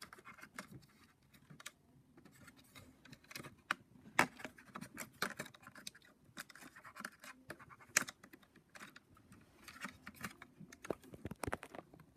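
Faint, irregular clicks and scratches of an HP Pavilion dv2000 laptop's parts being handled and worked apart by hand, with a few sharper clicks.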